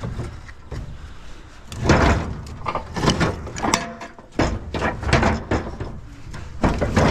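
Scrap metal being shifted and handled: a series of clanks and thumps, several in the middle and another cluster near the end, one with a short metallic ring.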